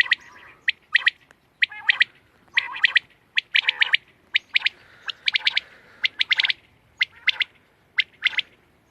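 Quail calling: quick groups of two to four sharp notes, repeated about once a second.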